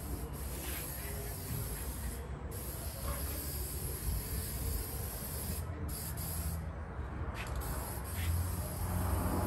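Aerosol spray paint can hissing in bursts with short pauses as silver paint is sprayed on the final coat. A low hum grows louder near the end.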